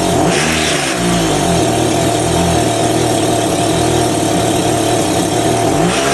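Petrol strimmer engine running steadily at low revs, its pitch wavering slightly up and down.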